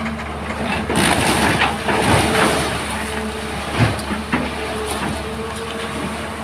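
Excavator engine running steadily, with crunching and scraping of stone and earth from about one to two and a half seconds in, then two sharp knocks a little after the middle.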